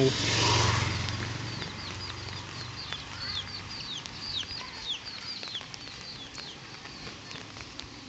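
A motorcycle engine passes close by and fades away within the first second or two. Then come several seconds of birds chirping: a quick run of short, falling chirps.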